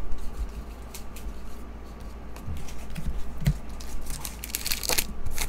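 Trading cards and a foil pack wrapper being handled: soft card slides and small clicks, with a brief crinkle of the wrapper near the end.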